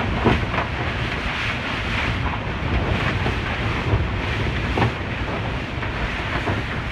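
Strong typhoon wind blowing and gusting, with a heavy low rumble of wind on the microphone and a few sharper gusts.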